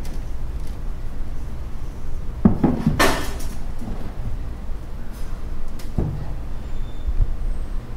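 A metal scoop knocking on and tipping powder into a clear plastic measuring tub: a cluster of knocks and a short rush of pouring about three seconds in, then a few light clicks, over a steady low hum.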